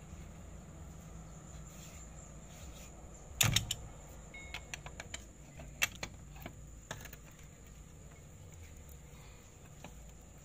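Steel lug wrench clinking on the wheel nuts of a car's alloy wheel as they are tightened: one sharp clank about three and a half seconds in, then a few lighter metallic clicks.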